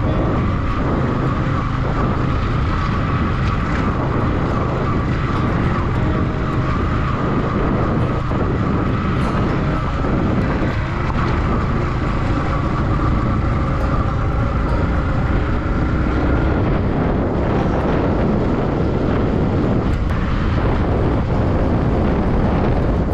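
A motorcycle being ridden at a steady speed: its engine runs evenly under heavy wind and road noise, and a faint whine rises slowly in pitch over the first two-thirds.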